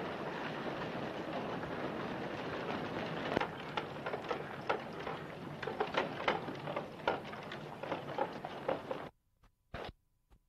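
Hiss and crackle of a 1929 Movietone sound-film recording of a street, a dense steady noise with irregular clicks and knocks from about three seconds in. Near the end the sound drops out almost completely, broken by a couple of brief clicks.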